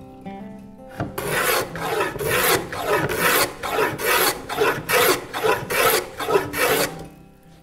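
A vintage combination plane cutting a small rabbet along a board's edge. About a dozen quick rasping strokes, roughly two a second, begin about a second in and stop near the end.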